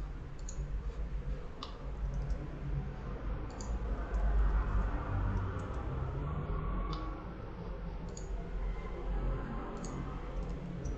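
A handful of short, scattered computer mouse clicks over a steady low background hum.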